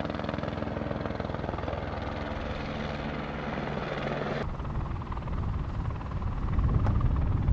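Helicopter in flight, its rotor and engine making a steady sound. It changes abruptly about four and a half seconds in and grows louder near the end.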